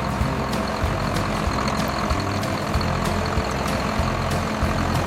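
Small tractor engine running steadily, with short clicks recurring through it.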